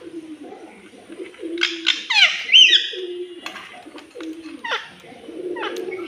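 Indian ringneck parakeet calling: a burst of loud, steeply falling squawks about two seconds in, then single short falling chirps about a second apart. Under them runs a low, wavering cooing.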